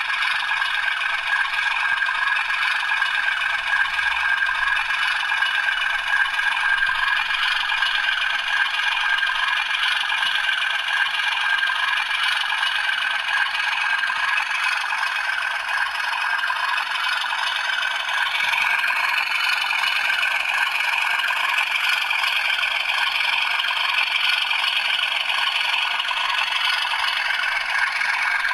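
Sound-fitted model Class 37 diesel locomotive playing its diesel engine sound through a small onboard speaker, running steadily with no real bass as the model moves slowly along the track.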